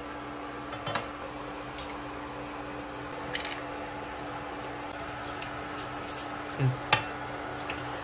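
Eggs being fried in a nonstick pan on a portable induction cooktop: a steady hum and hiss, with a few light clicks and taps of eggshell and spatula against the pan, and a sharper knock and click near the end.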